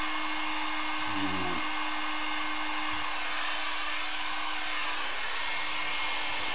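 Electric heat gun running, blowing hot air with a steady, continuous hiss.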